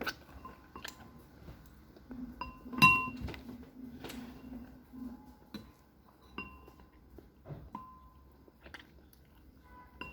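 Eating utensils clinking against dishes several times, each clink leaving a short ringing ping. A sharp knock about three seconds in is the loudest sound, and a low steady hum runs for about three seconds around it.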